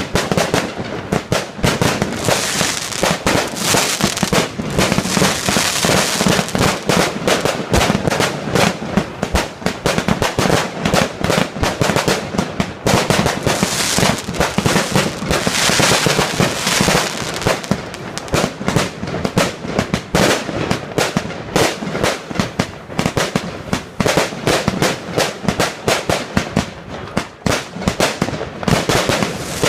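Fireworks going off in rapid, unbroken succession: a dense barrage of bangs and crackling with no pause.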